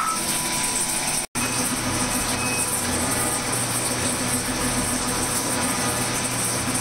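Smith & Mills metal shaper running, a steady machine drone with a low hum underneath. The sound cuts out for an instant just over a second in.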